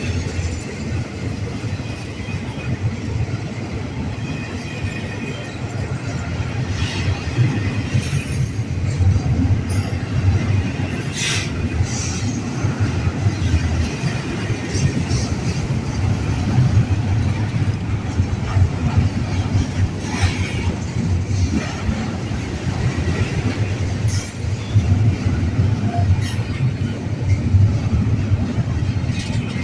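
Freight train rolling past with a steady low rumble of railcars on the track, broken about ten times by brief sharp squeals and clanks from the wheels and couplings.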